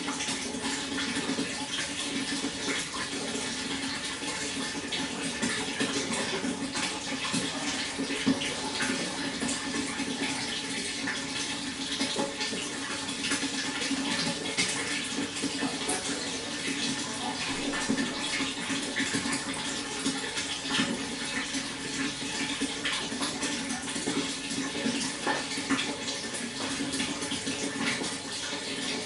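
Water running steadily, with many small irregular splashes and gurgles.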